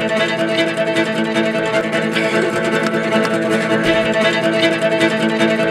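Music from a string band: bowed strings holding a long steady chord over plucked guitar.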